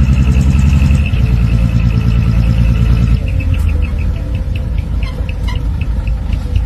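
Truck engine sound running steadily, stepping down in pitch about a second in and again about three seconds in, with a fast high ticking over it in the second half.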